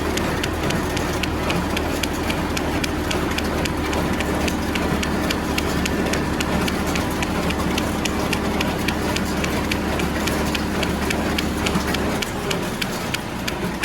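Tractor engine running steadily with a Welger AP51 square baler working behind it: a low drone under a fast, even clicking from the machinery. The low part of the drone changes about twelve seconds in.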